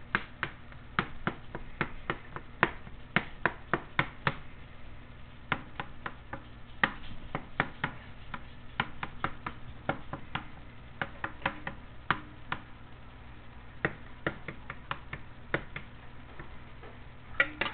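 Hands working raw burger meat: sharp, irregular slaps and taps, two or three a second, over a low steady hum.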